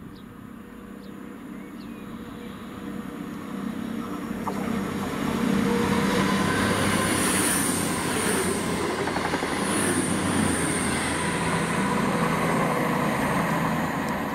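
CrossCountry Voyager diesel multiple unit running past on the main line: the underfloor diesel engines and wheel-on-rail noise build over the first few seconds, then hold loud and steady as the train goes by.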